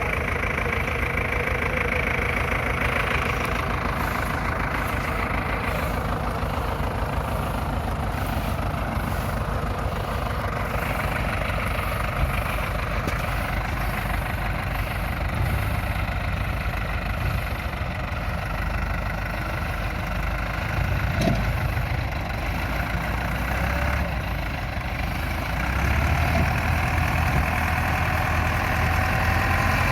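SAME Explorer II tractor diesel engine running steadily, getting louder and deeper about 26 seconds in.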